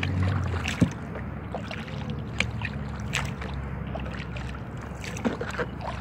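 Inflatable sea kayak being paddled on a river: paddle strokes splashing and dripping over a steady low rumble, with a few sharp knocks, the loudest about a second in.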